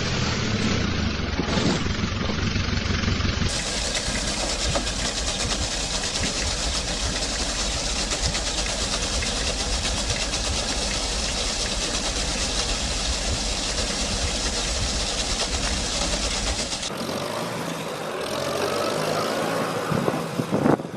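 Tractor engine running across a few short clips. Through most of it a small red tractor runs half-submerged in a river, with water splashing around its wheels.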